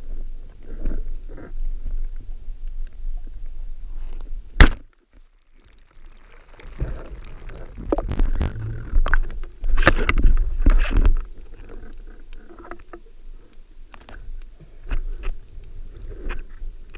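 Underwater sound of a diver moving, with low water rumble against the camera housing. A single sharp, loud clack about four and a half seconds in is the band-powered speargun firing. Later, a busy stretch of water rushing and knocks as the speargun shaft, line and speared fish are handled.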